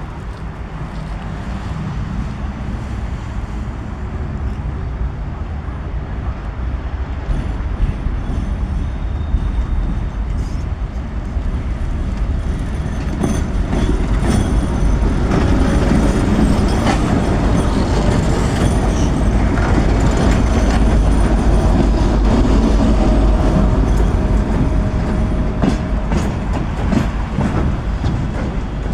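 Train running past a station platform: a steady rumble that grows louder through the middle, with wheels clacking over rail joints, the clacks thickest near the end.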